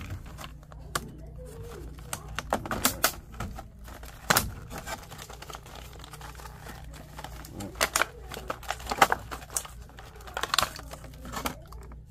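Irregular sharp clicks, snaps and crinkling from hand work on thermostat wiring and small parts, over a steady low hum.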